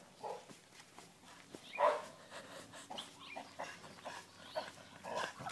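Dogs barking faintly, a string of short barks, the loudest about two seconds in.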